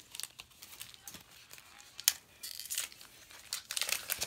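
Foil Pokémon booster pack being torn open and crinkled: crackling in several short spells, with a sharp snap about two seconds in.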